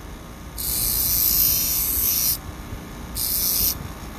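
Bench grinder wheel grinding the broken tip of a steel carving knife blade: two light touches give a hissing rasp, the first about two seconds long, the second brief, over the grinder motor's steady hum. The tip is being ground flat with a light touch so as not to overheat the steel.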